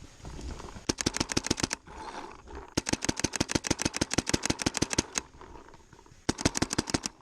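Mechanical paintball marker firing in rapid strings of about ten shots a second: a short burst, a longer string of about two dozen shots, then another short burst near the end.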